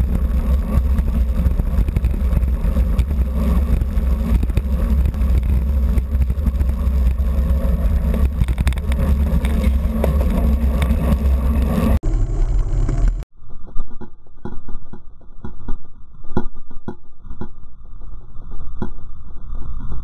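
Wind buffeting the action camera's microphone on a racing bicycle moving at race speed in a pack, a loud, steady rush with a heavy low rumble. About 13 s in, the sound cuts abruptly to a muffled, lower track with irregular knocks.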